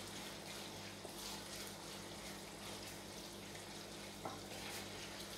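Grated carrots frying gently in olive oil in a pan on low heat: a faint steady sizzle, with a wooden spoon stirring through them, over a low steady hum.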